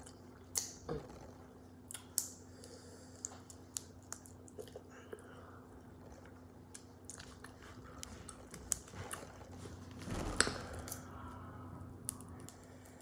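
Close-miked eating of boiled shellfish: crab and crawfish shells cracking and clicking as they are broken apart, and chewing. The cracking grows louder and denser for a moment about ten seconds in.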